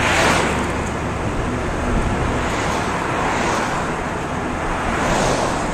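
Steady road and tyre noise from a car driving along a city street, with oncoming cars swishing past, one right at the start and another about five seconds in.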